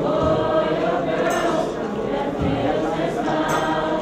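Choir singing over a steady beat, with a sharp percussive hit about once a second.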